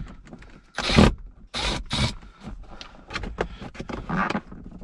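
Hard plastic armrest lid of a GM truck's center console being shifted and worked loose from a tight fit at its hinge: a few short scrapes, then a run of small clicks and rubs.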